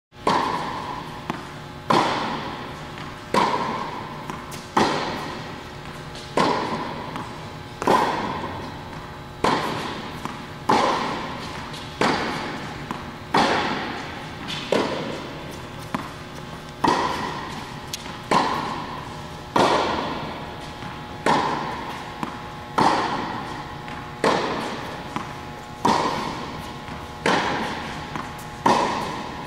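Tennis balls struck by rackets in a steady rally: a sharp hit about every one and a half seconds, each ringing out briefly, with fainter ball bounces between.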